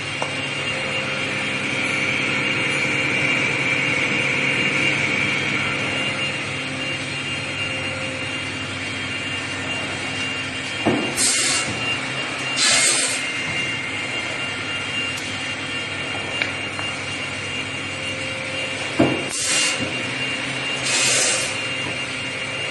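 Pneumatic cross-cut saw for wood running with a steady whine. Twice it goes through a cutting cycle: a sharp knock, then two short loud bursts of noise about a second and a half apart.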